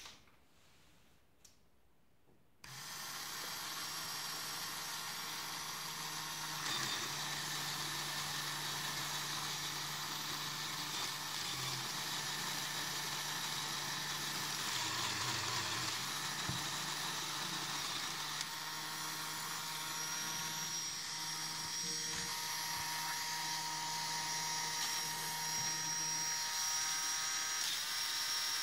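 Small LEGO Power Functions electric motor running steadily and turning the model's plastic Technic gears, a continuous whir. It starts about two and a half seconds in, after a moment of near silence.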